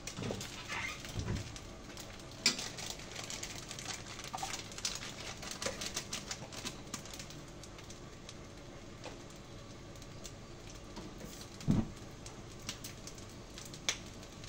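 Scattered light clicks and taps of a spoon against containers and a pot while margarine is spooned in, with a dove cooing a couple of times in the background.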